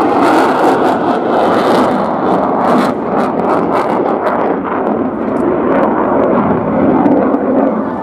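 Loud, steady jet aircraft engine noise, swelling and easing slightly, with some crackle in the first few seconds.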